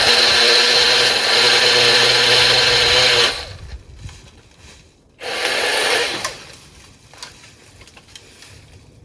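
Milwaukee M18 cordless pole saw running its chain, cutting into fallen cedar: a steady high motor whine for about three seconds that stops, then a second, shorter burst of about a second.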